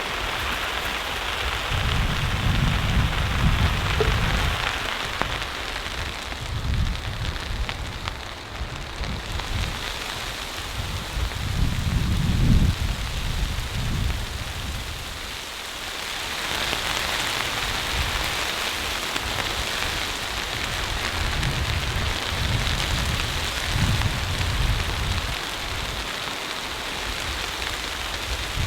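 Blizzard wind gusting in swells, with a steady hiss of wind-driven snow.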